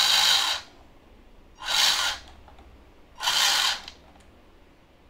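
Small electric drive motor and gears of a model RC bus whirring in short bursts as the forward button is pressed: one stops about half a second in, then two more of about half a second each follow, a little over a second apart. The motor runs but the bus barely moves forward, a drive fault in its differential.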